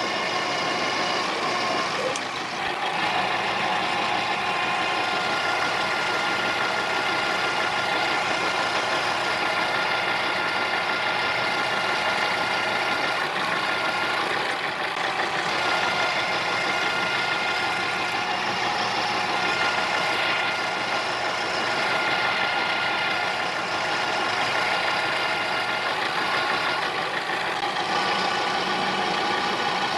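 Harbor Freight mini lathe running steadily with a whine, taking a turning pass of about 50 thousandths on aluminum bar stock.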